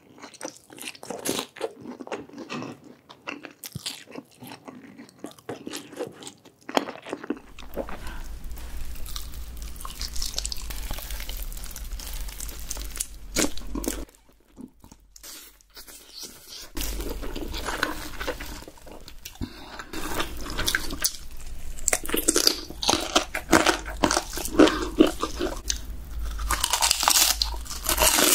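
Close-miked eating: crisp fried food being bitten into, crunched and chewed, over and over. A steady low hum sits under the later part.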